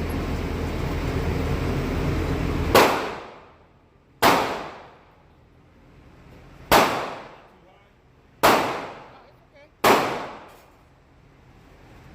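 A 12 gauge shotgun fired five times in steady succession, about one and a half to two and a half seconds apart. Each shot is followed by about a second of echo.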